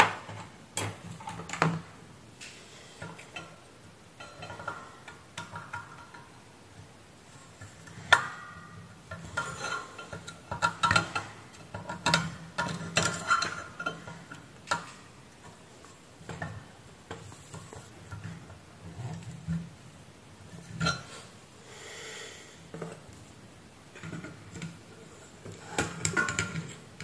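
Irregular metallic clicks, clinks and clatter as hands and a tool work on the steel chassis and circuit board of a variable frequency drive during disassembly. The sharpest knock comes about eight seconds in, followed by a busy run of clattering.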